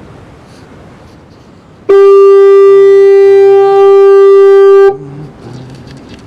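Fog horn sounding one very loud, steady blast of about three seconds at a single pitch, starting and cutting off abruptly.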